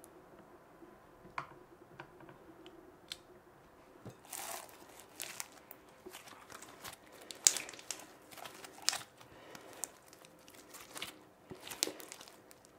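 Thick pink glue-and-activator slime being squeezed and stretched by hand, with squishing and sharp pops and clicks of trapped air bubbles bursting. There are only a few pops at first; from about four seconds in they come thick and fast.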